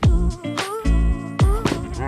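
Background music: a beat-driven song with deep bass hits that drop in pitch and a wavering melody line over held notes.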